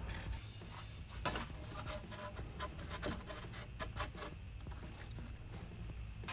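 Scattered light clicks, taps and scraping of metal exhaust parts being handled and fitted by hand, over a steady low hum.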